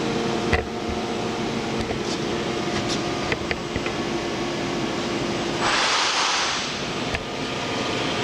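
Sencorp 2500 roll-fed thermoformer running: a steady machine hum with a few sharp clicks, and a loud hiss lasting about a second near six seconds in.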